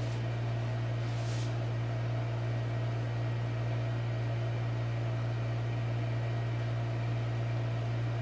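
Steady low mechanical hum from a running machine or motor, holding one pitch with fainter steady tones above it, plus a faint click about a second in.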